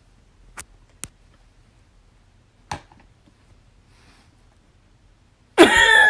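Three faint sharp clicks spaced over the first few seconds, then near the end a sudden loud exclamation of surprise from a person.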